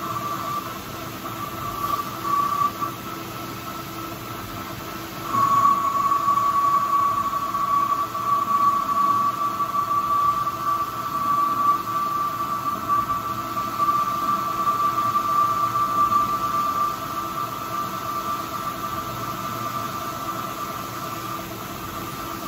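Old manual metal lathe running while its cutting tool turns a stake driver down to size, a steady high whine over the machine's hum that grows louder about five seconds in as the cut takes hold.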